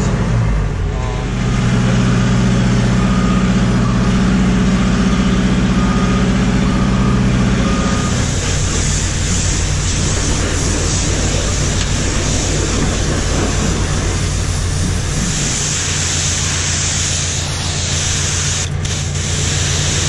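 Heavy engine running steadily, with a faint short beep repeating now and then in the first half. From about eight seconds in, the hiss of a pressure-washer spray joins it, louder near the end.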